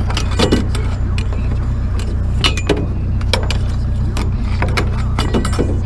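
Truck engine idling with a steady low hum, while pieces of scrap metal clank and clink several times as they are handled and loaded.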